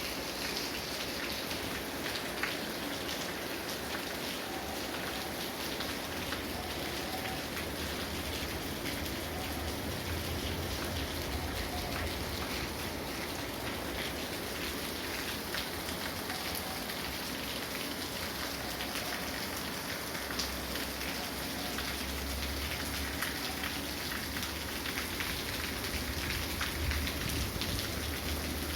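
Steady rain falling, an even hiss with many individual drops ticking through it.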